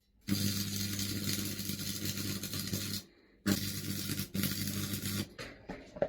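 Stick (MMA) welding arc burning a 2 mm electrode on thin steel: a loud crackling hiss over a steady mains buzz from the old transformer welder. The arc goes out about three seconds in, strikes again half a second later, falters briefly, then dies about five seconds in with a few sputters; the ageing transformer is cutting out under the load.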